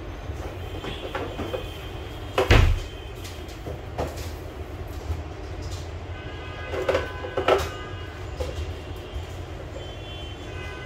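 Eggs clicking against each other and against a stainless steel tray as they are handled one by one, with a few sharper clatters, the loudest about two and a half seconds in, over a steady low hum.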